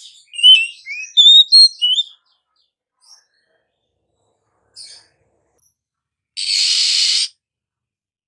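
Oriental magpie-robin singing a quick phrase of loud, clear whistled notes that slide up and down. After a pause of a few seconds a harsh, hissing buzz about a second long follows.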